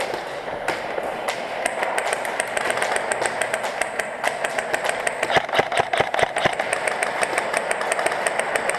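Rapid airsoft gunfire indoors: electric airsoft guns firing long full-auto strings, heard as a fast, even run of clicks, with a few louder knocks about five to six and a half seconds in.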